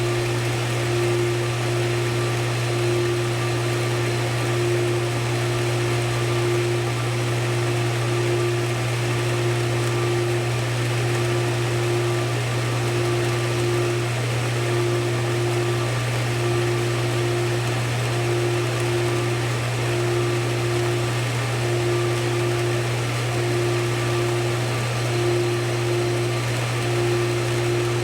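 Large pool pump running steadily up close: a strong low hum with a higher tone that pulses about every two seconds, over a steady hiss.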